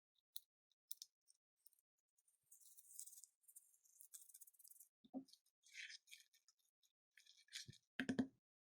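Faint, scattered crackles and clicks of slime-making materials being handled, with a soft thump about five seconds in and a few more thumps near the end.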